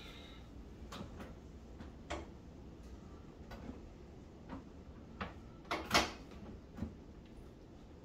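Scattered light clicks and knocks of a microwave part being handled and fitted by hand, about eight in all, the loudest about six seconds in.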